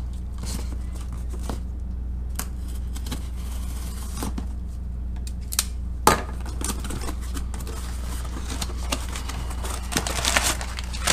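Cardboard shipping box being opened by hand over a steady low hum: a sharp click about six seconds in as a folding knife is set down, then the flaps are pulled open with a rustling cardboard scrape near the end.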